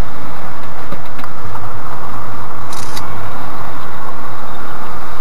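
Škoda Rapid's 1.6 MPI four-cylinder petrol engine running with tyre and road noise, heard loud from inside the cabin. There is a short burst of hiss about three seconds in.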